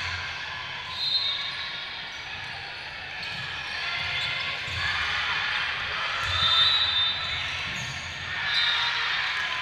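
Volleyball match in a gymnasium: players and spectators chattering, echoing in the hall, with a few short high squeaks about a second in and twice near the end.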